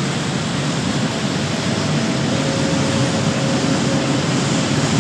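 Freight train of loaded two-tier car-transporter wagons rolling past: a steady rumble of wheels on rail, with a faint thin whine in the middle.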